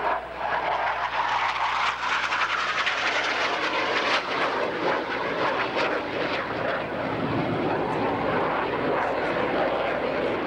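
Blue Angels F/A-18 Hornet jets passing overhead: a loud, steady jet-engine noise that holds throughout.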